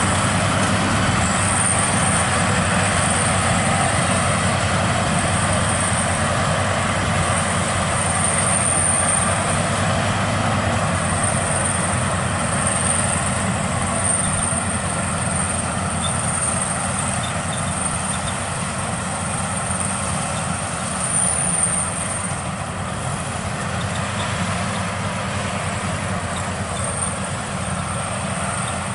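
Maxxi Bimo 102L rice combine harvester running steadily as it cuts and threshes standing rice: a continuous engine and machinery noise that eases off slightly in the second half.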